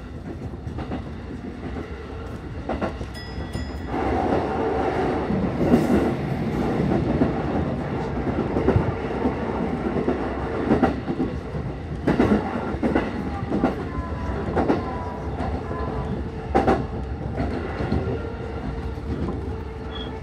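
Keihin-Tohoku line electric commuter train running, heard from inside the car: a steady rumble of wheels on rail with sharp clacks over the rail joints, growing louder about four seconds in.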